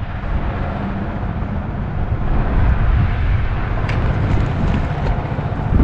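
Wind buffeting the camera microphone: a steady, uneven low rumble, with a few faint clicks near the end.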